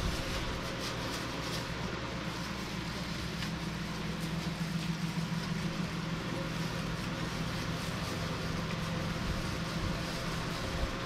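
Steady low mechanical hum with faint light clicks scattered through it.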